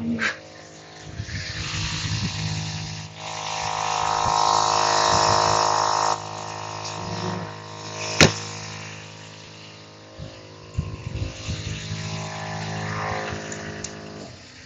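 Puma 12-volt, 3/4 hp air compressor running steadily as it pumps up its 1.5-gallon tank, with the vehicle's engine at a raised idle. A louder rushing noise comes in between about three and six seconds in, and there is a single sharp click about eight seconds in.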